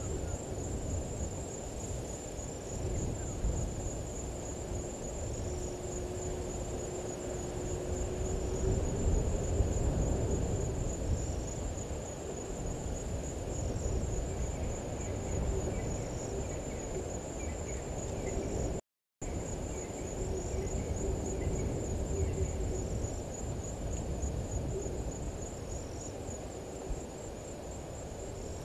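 Bush ambience: a steady high-pitched insect trill, with a soft chirp repeating every one to two seconds, over a low rumble. The sound cuts out for a moment just past the middle.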